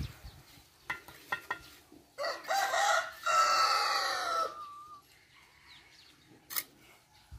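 A rooster crows once, about two seconds in: a short opening phrase, then a long held note that falls away at the end. A few light knocks come before and after the crow.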